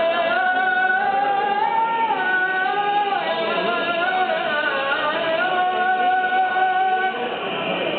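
Music: a single melodic line of long held, ornamented notes that slide from pitch to pitch, ending about seven seconds in.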